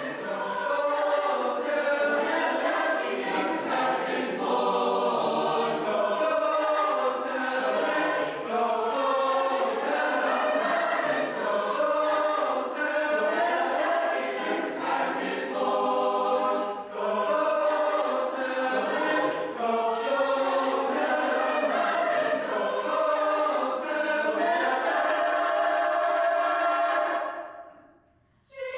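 High school choir singing Christmas carols, many voices together. The singing fades out shortly before the end.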